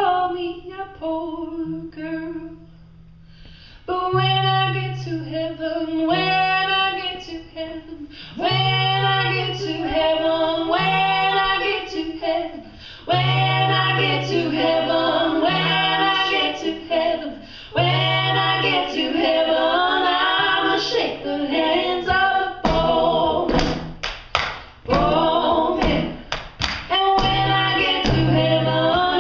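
Women's vocal trio singing in close harmony over steady low accompanying notes. Near the end comes a quick run of sharp percussive hits between phrases.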